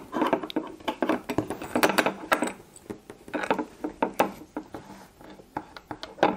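Small screws and a standoff clicking and scraping against a Be Quiet! LGA-1700 CPU cooler mounting bracket as it is fastened by hand: irregular light clicks and ticks, some in quick clusters.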